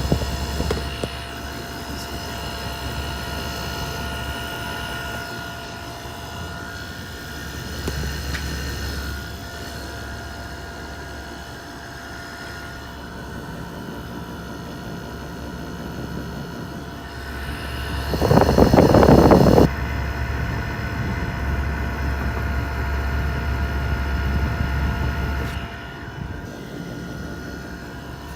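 Central air conditioner condensing units running: fans and scroll compressors humming steadily, with a few steady whining tones. About two-thirds of the way through, a loud rush lasts a second or two.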